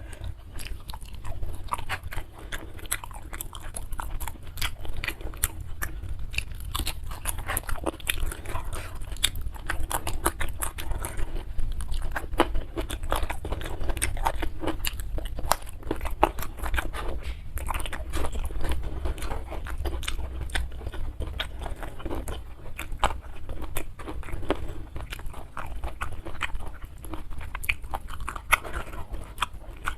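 A person chewing and biting crunchy food close to the microphone, with a steady stream of crisp crunches and wet mouth sounds.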